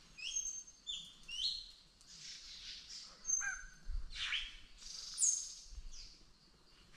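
Several forest birds calling: three quick rising whistled notes in the first second and a half, then a few high thin whistles and a downward-sweeping call through the middle, the loudest a high whistle near the end.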